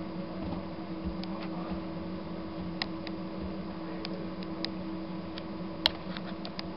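Faint, sharp crunching clicks from a bearded dragon's jaws chewing a small live mouse, scattered irregularly with one louder click near the end, over a steady low hum.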